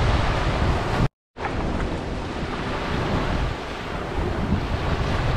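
Small waves washing onto a sandy beach, with wind rumbling on the microphone. About a second in, the sound cuts out to complete silence for a split second, then resumes.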